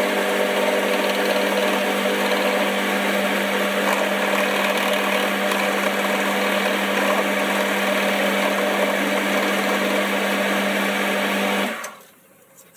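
Boxford lathe running steadily, spinning an end mill in its chuck to mill a flat into the steel tool post. There is a constant hum under a dense machining noise, and it stops about a second before the end.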